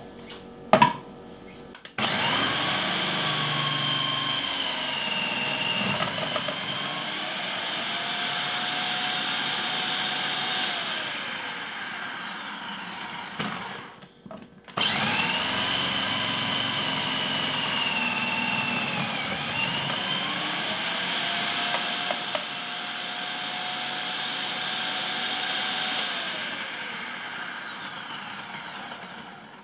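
Electric food processor shredding a block of mozzarella pushed down its feed tube, the motor's whine shifting in pitch as the cheese is forced through. It runs for about twelve seconds, stops briefly, then runs again for another stretch of about the same length.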